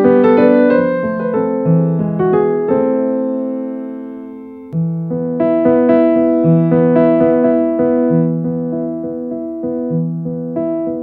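Background piano music, slow and gentle. One phrase dies away about four seconds in, then a new one starts over a repeated low note.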